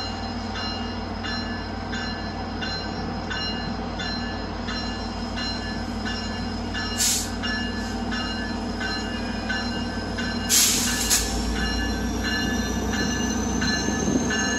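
Via Rail passenger train running past with a steady low diesel hum, and a bell dinging about every 0.6 s. There are two brief high-pitched noise bursts, about 7 s in and again about 10 s in.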